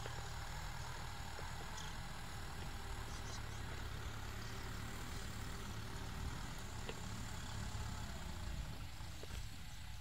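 Kubota tractor's diesel engine running steadily as it pulls a disc plough through a dry field, a low even hum with a few faint clicks.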